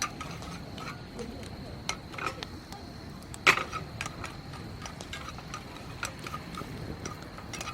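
Campfire crackling: irregular pops and clicks of burning wood, with one louder pop about three and a half seconds in.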